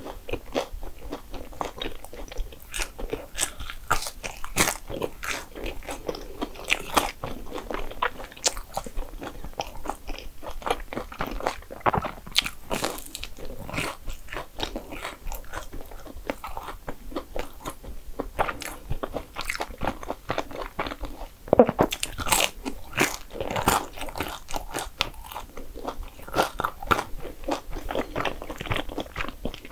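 A person biting and chewing dessert food: a dense, continuous run of small crunchy bites and mouth sounds, with one louder bite about two-thirds of the way through.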